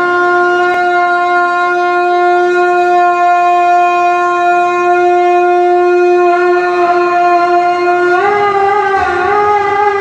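A wind instrument holding one long steady note for about eight seconds, then breaking into a wavering, ornamented melody near the end.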